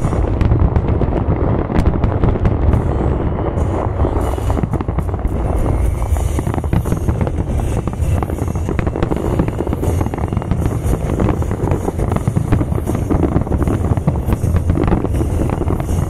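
Aerial fireworks display in full barrage: shells bursting one after another in a continuous low rumble of booms, with crackling throughout.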